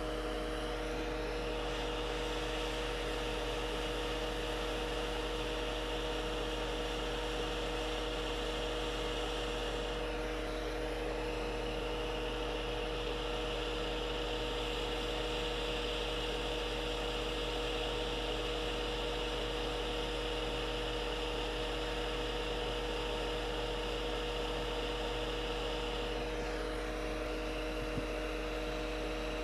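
Steady electrical hum and motor whine of running workbench equipment, with a high whine that dips briefly about ten seconds in and again near the end, and one faint click near the end.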